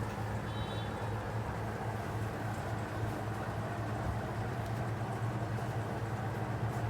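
Steady low mechanical hum with background noise, unchanging throughout. A brief faint high chirp comes about half a second in.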